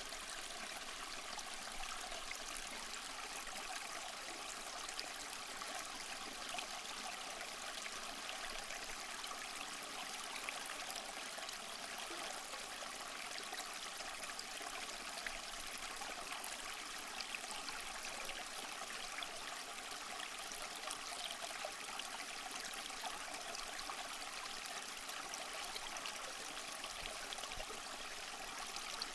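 Small waterfall trickling and splashing over moss and rock, a steady even rush with many small splashes and drips.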